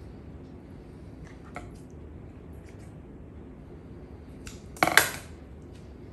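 A few faint clicks of kitchen things being handled on a countertop, then a short, sharp clatter about five seconds in, like dishes or hard plastic knocking together.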